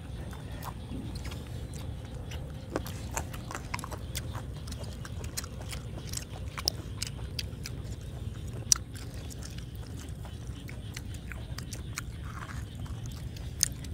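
Two people chewing and tearing apart boiled pork cheek by hand: scattered short, sharp clicks over a steady low rumble, with a louder click a little under nine seconds in.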